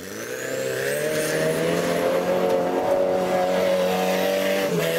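Off-road buggy engine revving up and then held at high revs while the buggy slides and spins on loose gravel. It swells in over the first second, then runs steadily, with a brief dip near the end.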